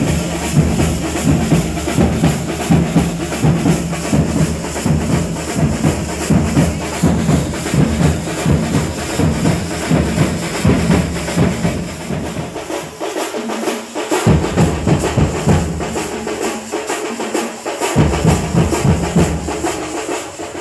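Loud music with a heavy, pounding drum beat; the bass drops out twice for a second or two about two-thirds of the way in.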